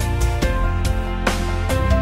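Background music: a steady bass with held melodic notes and repeated percussive hits.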